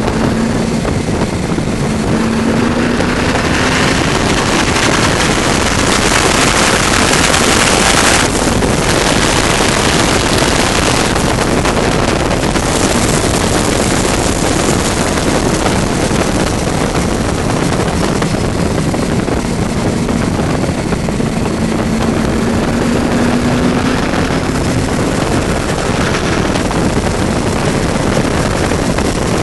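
Supercharged, fuel-injected Cobra V8 pulling hard at track speed, heard from the open cockpit under a loud rush of wind on the microphone. The engine note climbs slowly at the start and again later, and the loud rush eases suddenly about eight seconds in.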